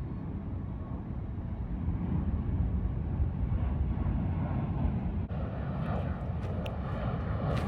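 A car's engine running: a steady low rumble that grows a little louder about two seconds in. More hiss and a few clicks join near the end.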